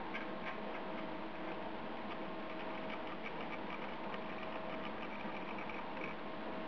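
Small motor of a rotating display turntable running steadily with a thin steady hum, with faint irregular ticking from its gearing.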